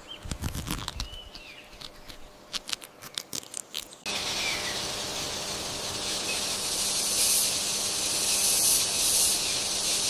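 Irregular crackling clicks, crunch-like, for about four seconds as the mantis holds its beetle prey. Then an abrupt change to a steady high hiss of insect-chorus ambience that swells and fades, with a few faint chirps.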